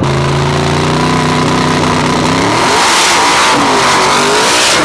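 Drag race car engine held at steady revs, then revving up about halfway through as the sound turns louder and rougher.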